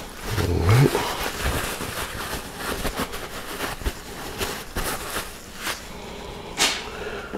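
Paper towel rustling and crinkling as it is rubbed over and dabs marinade off a pork tenderloin, with a short low rising sound about half a second in and a louder rustle near the end.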